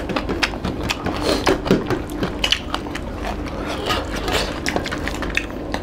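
Close-up eating sounds: a dense run of small wet clicks, smacks and scrapes as hands mix rice and chicken curry on steel plates and mouths chew.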